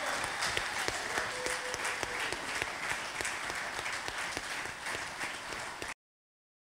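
Audience applauding, a dense patter of many hands clapping that is cut off abruptly near the end.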